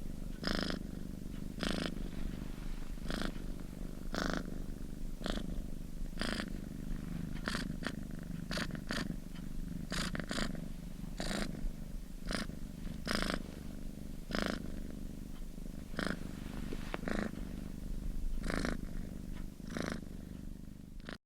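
Kitten purring steadily, swelling about once a second, then cutting off suddenly at the end.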